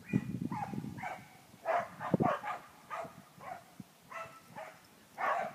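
A dog barking in a run of short, high yips, about a dozen over a few seconds, with a low rumble on the microphone near the start and again about two seconds in.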